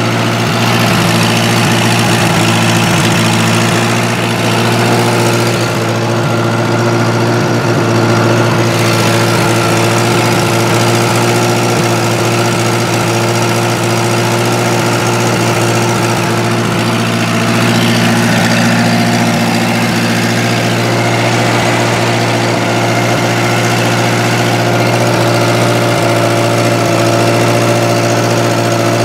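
Gasoline engine of a 1970s Bobcat 610 skid steer running steadily at idle, warming up after a cold start.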